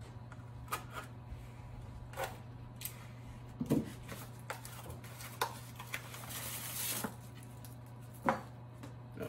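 Hands unwrapping an office chair's gas-lift cylinder from its cardboard and plastic packaging: scattered clicks and knocks, and about a second of plastic bag crinkling past the middle, over a steady low hum.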